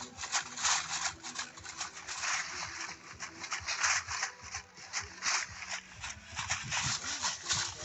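Dancers' leg rattles of flattened metal bottle caps strung around the shins, jangling and shaking in a quick, uneven rhythm as the dancers step.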